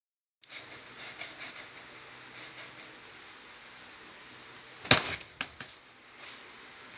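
Cardboard box being handled: a run of short scratchy rustles and scrapes, then one sharp knock about five seconds in, followed by a few lighter taps.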